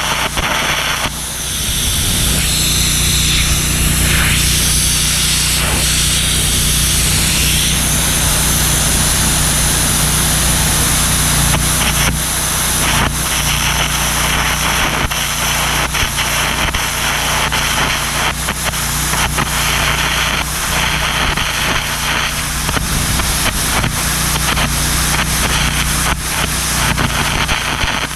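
An electric arc crackling and hissing steadily on the cracked steel of a Caterpillar 416 backhoe boom, with a steady low engine hum underneath.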